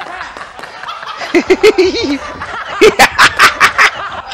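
A man laughing hard in two bursts: a quick run of short 'ha' pulses about a second and a half in, then a longer, louder run of about six about three seconds in.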